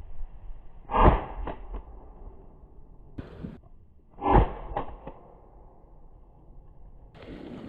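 Two shotgun shots about three and a half seconds apart, each followed by a few fainter echoes.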